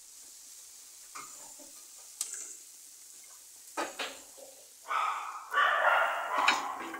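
Tomato frying in a pan on the stove: a faint sizzle with a few sharp clinks of a ceramic bowl and pans. About five seconds in, a much louder, rougher burst of noise lasts almost to the end.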